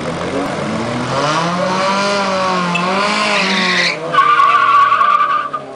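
Drag-racing cars, a Honda Civic and a Chevy, revving their engines at the start line with a hiss of spinning tires. About four seconds in comes a loud, steady tire squeal lasting about a second and a half, then it cuts off.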